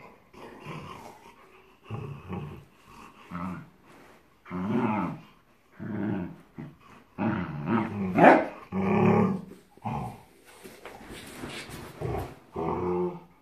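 A wire-haired dachshund and a young rottweiler growling at each other in play: a string of growls about a second long each, with short gaps between, and a sharper rising cry about eight seconds in.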